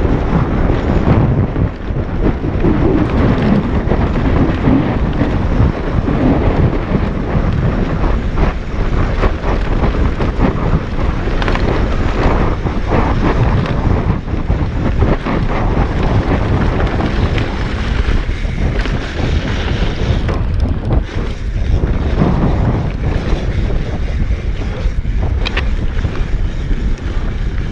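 Wind noise on a GoPro's microphone as a mountain bike rides a dirt and gravel trail, with tyres crunching and the bike knocking and rattling over rough ground.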